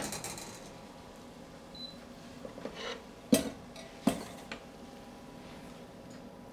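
Pan and kitchen utensils knocking and clinking: a few light clinks, then two sharp knocks a little under a second apart about halfway through, as the cooked vegetables are tipped out to drain.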